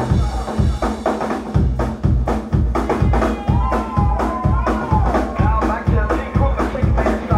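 Live band playing an instrumental passage, driven by a drum kit with a steady kick-drum beat of about two strokes a second. In the middle, a high line slides and wavers in pitch over the beat.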